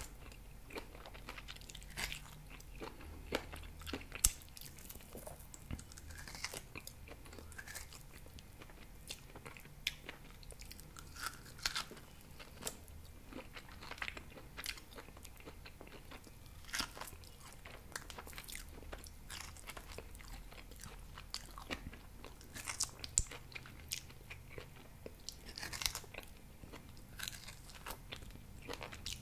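Biting and chewing grilled pork ribs, the meat pulled off the bone with the teeth: irregular small clicks and smacks of the mouth, several a second at times.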